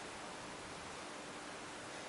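Steady hiss of room tone and recording noise, with a faint steady hum underneath; no breath, voice or movement sound stands out.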